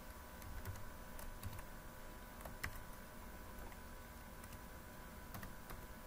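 Faint, scattered keystrokes on a computer keyboard as code is typed, the sharpest about two and a half seconds in, over a steady faint electrical hum.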